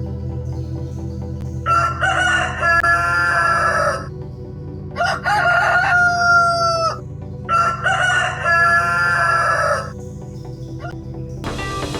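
Rooster crowing three times, each crow a long cock-a-doodle-doo of about two seconds.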